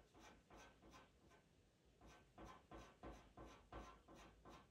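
Faint scratching of a pastel pencil on Pastelmat paper, drawn in short quick strokes about three a second to put in fur hairs, with a brief pause about a second and a half in.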